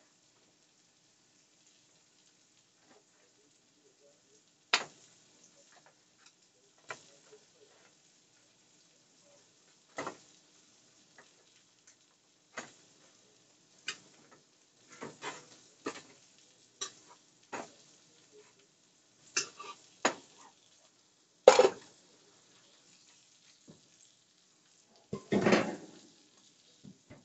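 Scattered clinks and knocks of a metal baking pan as baked biscuits are turned over in it by hand, with one sharper knock past the middle. Near the end comes a short rattling scrape as the pan goes back onto the oven rack.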